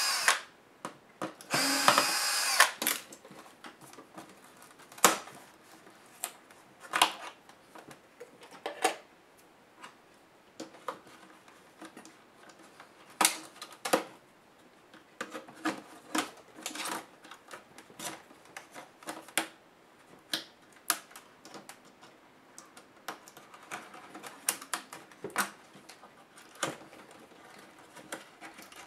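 A small electric screwdriver runs in two short bursts near the start, driving out screws during a laptop disassembly. After that come irregular clicks and taps of small tools and the laptop's plastic case parts being handled and pried.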